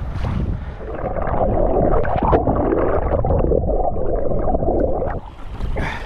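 Water gurgling and sloshing close to the microphone, building about a second in and dropping away near the end.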